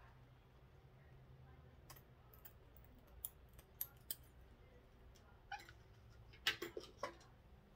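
Scissors snipping through ribbon: a few short, sharp snips, then a cluster of louder clicks near the end as the scissors are set down on the tabletop.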